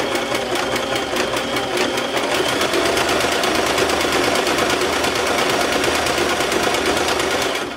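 Domestic sewing machine running steadily, sewing a stretch stitch along a track-pants hem with a fast, even rhythm of needle strokes. It stops near the end.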